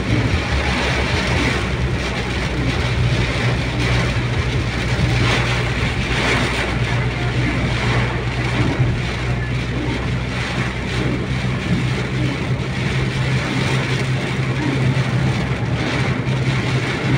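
Car driving at highway speed through heavy rain, heard from inside the cabin: a steady low engine and road hum under a constant hiss of rain and tyre spray.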